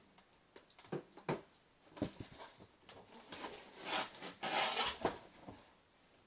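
Cardboard boxes being handled: a couple of knocks about a second in, then scraping and rustling as the product box is worked out of the shipping box, loudest around four to five seconds in.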